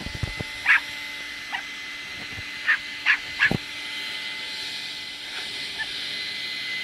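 Small puppy yapping: about six short, high yaps in the first three and a half seconds, over a steady mechanical hum.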